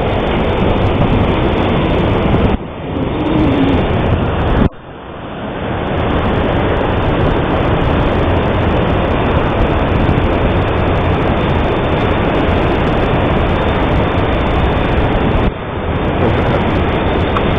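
Loud steady rumble of wind and ship noise on deck, broken three times by a sudden loud report from the ship's 30mm gun. After each report the recording ducks sharply and then recovers, the second time about five seconds in.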